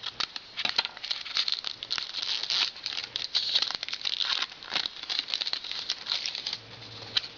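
Crinkling and rustling of a hockey card pack wrapper and cards being handled: a busy run of small crackles and clicks.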